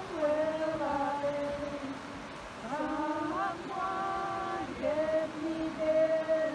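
A woman's voice singing an unaccompanied, chant-like prayer song in long held notes that slide from one pitch to the next.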